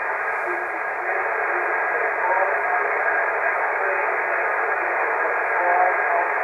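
Yaesu FT-450D HF transceiver's speaker hissing with 20-metre band static on single sideband. From about two seconds in, a weak, barely readable voice of a distant station answering a CQ call comes through the noise.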